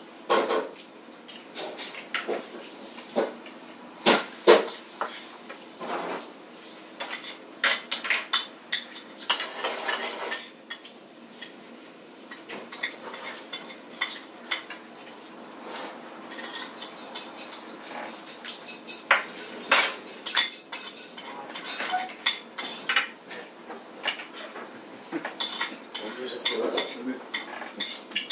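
Chopsticks and spoons clinking and scraping against ceramic plates and bowls while eating, in irregular clicks and knocks, over a faint steady hum.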